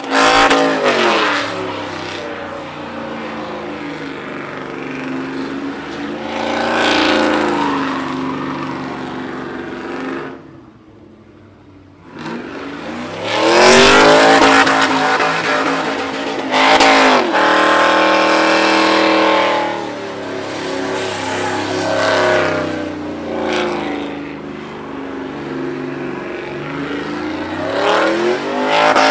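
Chevrolet Silverado pickup doing a burnout: its engine revs hard, the pitch climbing and falling again and again, over the hiss of spinning rear tyres. The engine drops away briefly about ten seconds in, then winds back up louder.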